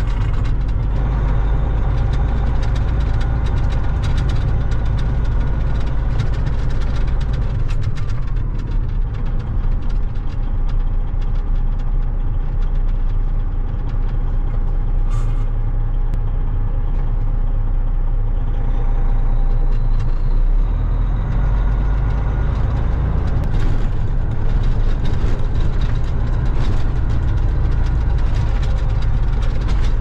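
Diesel semi truck engine running, heard from inside the cab as it drives slowly over gravel and a dirt field lane: a steady low drone with scattered rattles and knocks from the cab and a short hiss about halfway through.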